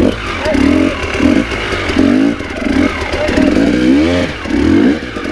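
Dirt bike engine revved in quick, repeated bursts, about seven in a few seconds, the pitch rising with each blip of the throttle, as the bike is worked over rough ground.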